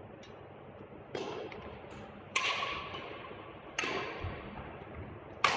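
Badminton rackets striking a shuttlecock in a doubles rally: four sharp cracks about a second and a half apart, each echoing in a large sports hall.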